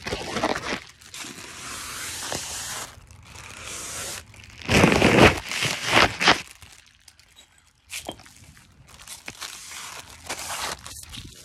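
Crinkling and crunching of clear plastic packaging handled in the hand, mixed with steps over wood mulch and pine straw. Loudest in a burst about five seconds in, with a brief near-quiet gap around seven seconds.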